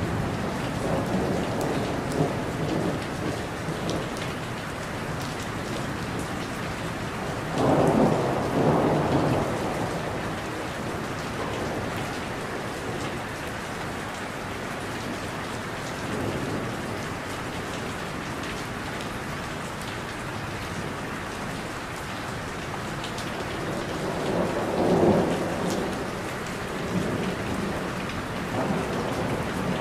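Thunderstorm: steady rain with rolling thunder, and two louder rumbles about eight and twenty-five seconds in.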